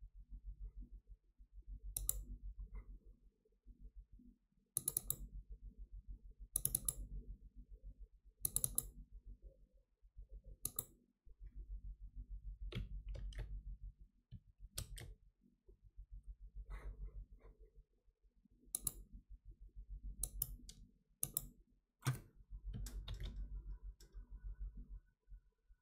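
Computer mouse clicking: about a dozen sharp single clicks and quick double-clicks spaced a second or two apart, over a faint low hum that comes and goes.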